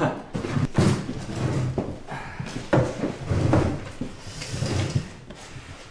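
Irregular knocks and short scrapes of chairs being pulled out and people sitting down at a table, loudest about a second in and near three seconds, fading toward the end.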